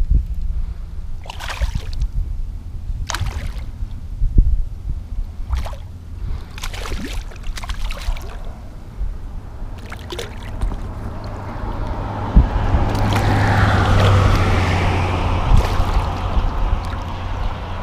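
A hooked fish splashing at the surface beside a kayak: a few short splashes and knocks, then a longer stretch of heavy splashing and sloshing water in the last few seconds as the fish is brought alongside and grabbed by hand.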